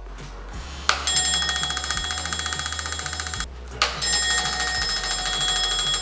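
Homemade battery-powered door alarm bell ringing: a steel gong struck very rapidly and continuously by a small motor-driven striker, set off by the door opening. The ringing starts about a second in, cuts out briefly about halfway through, and then starts again.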